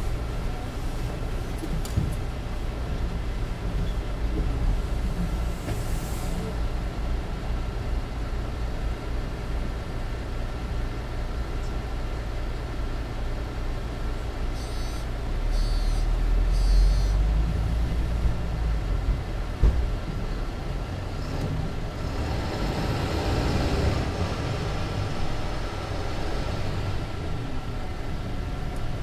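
Mercedes-Benz Citaro C2 LE city bus with a Voith automatic gearbox, its diesel engine running steadily. It pulls harder for a few seconds about halfway through, with a single knock soon after. Compressed air hisses a few seconds before the end, typical of the bus's air brakes.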